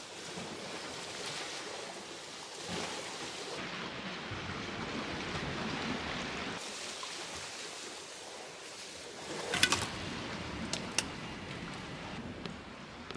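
Steady outdoor wind and surf noise, changing in tone a few times, with a few sharp clicks about two-thirds of the way through.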